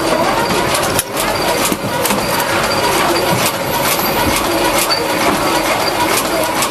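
Industrial machinery running steadily, with a constant hum and a few steady whining tones, and many sharp clicks and clacks at irregular spacing.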